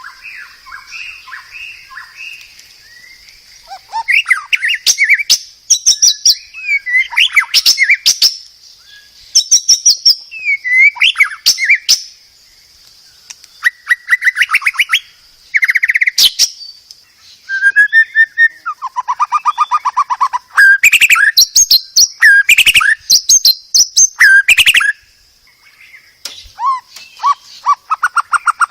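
White-rumped shama (murai batu) singing: loud, varied bursts of whistled phrases, fast trills and sharp clicks, broken by short pauses, over a faint steady high hiss.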